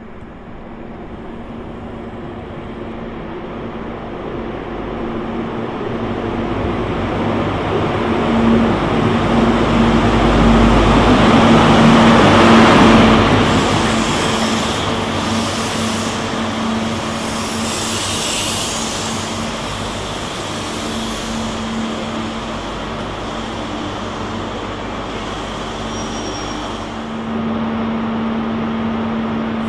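Class 43 HST diesel power car arriving at a station platform: its engine grows louder as it draws close, peaks about twelve seconds in, then runs on steadily as the train slows and stands alongside. There is a short hiss about eighteen seconds in.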